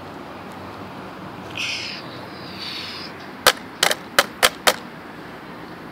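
A brief scraping rustle, then six sharp knocks in quick succession, hard taps on a hard surface.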